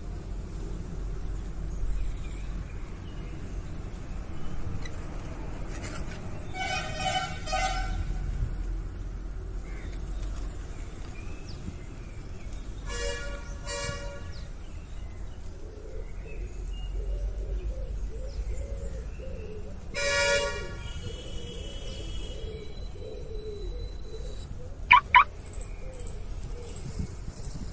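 Vehicle horns tooting a few times over a steady low rumble, one of them a quick double toot. Near the end come two sharp, brief high-pitched chirps, the loudest sounds.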